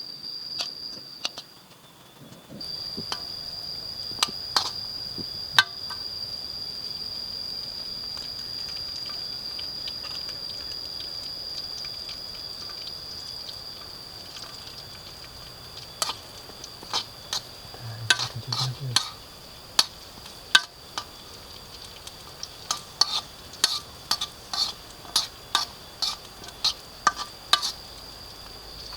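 Camp cooking: utensils clinking and tapping against a pot or pan, scattered at first and then coming one or two a second in the second half. Under it runs a steady high-pitched insect drone, broken briefly about two seconds in.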